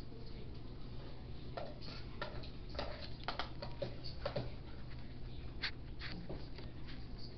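Scattered light clicks and taps as a paintbrush is dipped and knocked against a cup and art supplies in a pen case are handled, over a steady low hum.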